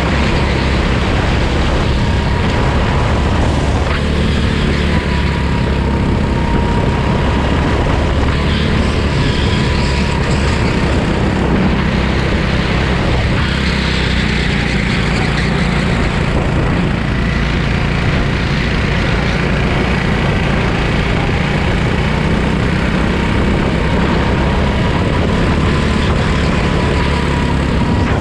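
Go-kart engine running steadily at speed, a continuous drone mixed with wind noise, with no breaks or sharp events.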